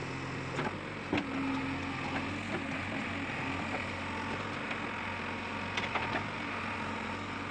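JCB backhoe loader's diesel engine running steadily, with a few short sharp knocks about a second in and again near six seconds.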